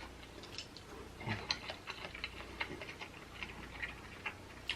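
Soft, irregular sticky clicks of juicy fresh jackfruit flesh being pulled apart and eaten, several small clicks a second.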